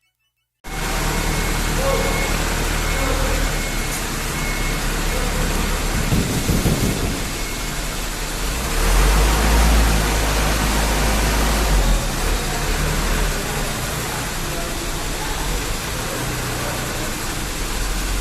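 A 2006 Toyota Dyna 125 HT box truck's diesel engine runs steadily with a deep low hum under a loud, even rushing noise. The sound swells for a few seconds about nine seconds in.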